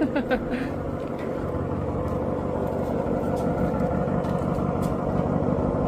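Truck engine running steadily at low speed while reversing slowly toward a trailer, slowly getting louder.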